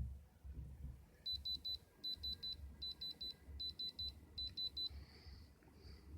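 Electronic beeper sounding quick groups of four short high beeps, five groups in a row about 0.8 seconds apart, like a digital alarm. Low handling rumble underneath.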